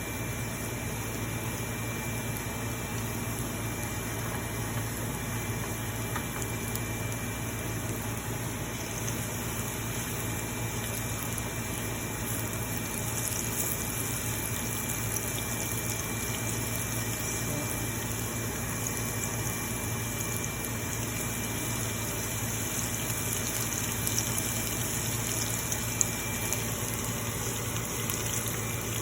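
Floured chicken cubes sizzling as they deep-fry in hot cooking oil in a pan, a steady hiss with fine crackling that grows busier about halfway through. A steady low hum runs underneath.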